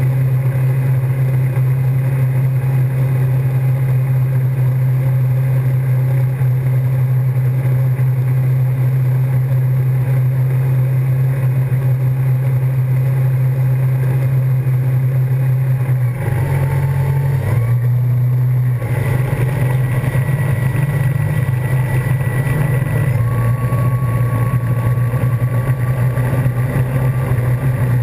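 Wakesurf boat's engine running steadily under way, a constant low drone over the rush of the churning wake; about two-thirds of the way through the engine note shifts briefly, then settles again.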